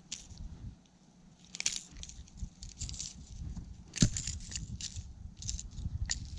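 Irregular crackling and rustling handling noises with a sharp knock about four seconds in, over a low rumble.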